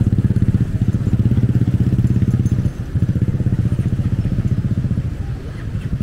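Helicopter heard from inside the cabin: a steady low, rapid throbbing of the rotor and engine.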